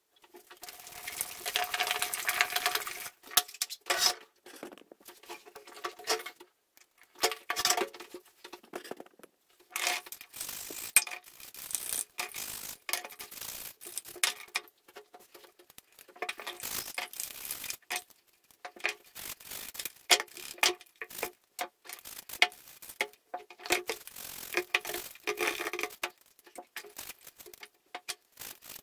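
Stiff bristle brush scrubbing rusty breast-drill parts in soapy degreasing liquid inside a plastic tub, in repeated scratchy bursts with small knocks of metal parts against the tub. It opens with a few seconds of continuous rushing noise.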